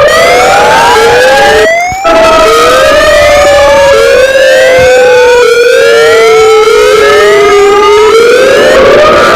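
Loud electronic siren-style alarm: short rising whoops repeat a little more than once a second over a long, slowly falling tone. The sound cuts out briefly about two seconds in.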